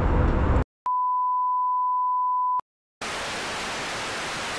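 Aircraft cabin rumble cuts off abruptly, then a steady high test-tone beep sounds for nearly two seconds, and after a short silence comes an even hiss of TV static: a 'please stand by' test-card sound effect.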